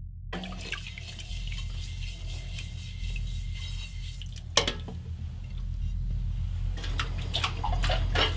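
Kitchen tap running into a pot of water in the sink as dishes are washed by hand. There is a sharp knock about halfway through and a few clinks of crockery near the end.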